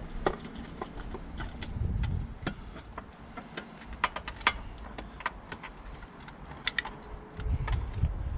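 Irregular metallic clicks and clinks of hand tools working a spark plug out of its well, with a few dull low rumbles.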